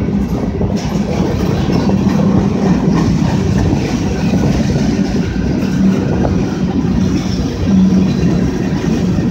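Freight cars of a long mixed freight train rolling past at a steady speed, among them empty centre-beam flatcars and boxcars: a continuous rumble with wheel clatter over the rails.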